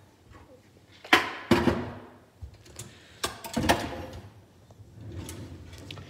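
Handling noise: several sharp knocks and clacks as a garage door opener's circuit board and parts are set down on a shelf, with a faint rustle near the end.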